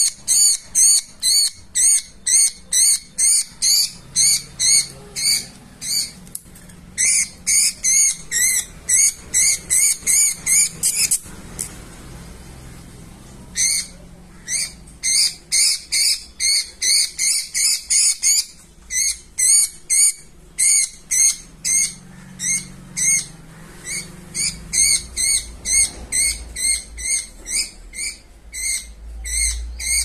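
Budgerigar screeching over and over while held in the hand: short, sharp, high-pitched distress calls, about two to three a second, with a pause of about two seconds near the middle.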